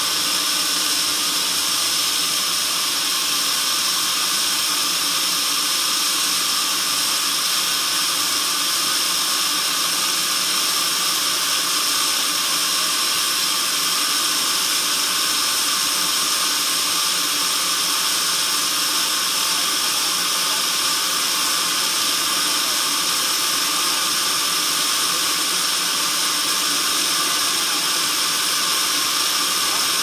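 Band sawmill running steadily: a continuous high-pitched mechanical whine and hiss from the band saw's blade and drive.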